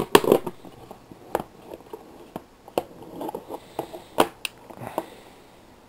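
Packaging being handled during an unboxing: rustling and crackling with about six sharp clicks and knocks, the loudest near the start and about four seconds in.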